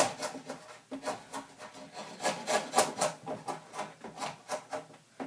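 Drawknife shaving the end of a peeled log into a round tenon: quick repeated scraping strokes on the wood, about three a second, smoothing it all the way around.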